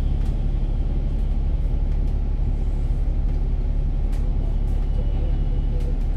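Bus engine and road noise, a steady low drone with a few faint ticks and rattles.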